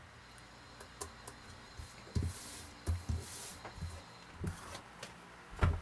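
Tarot cards being gathered up off a wooden table and handled: a string of light taps and knocks, with a short rustle of cards sliding together in the middle.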